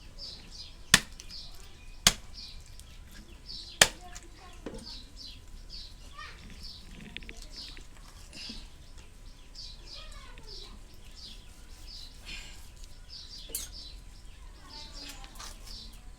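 A khukuri chopping through a chicken on a block: three sharp chops in the first four seconds. Birds chirp over and over in short, high notes through the rest.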